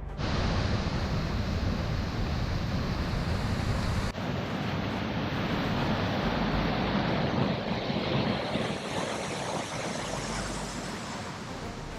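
Steady roar of rushing water from rain-swollen waterfalls in flood, with wind rumbling on the microphone. The sound changes abruptly about four seconds in.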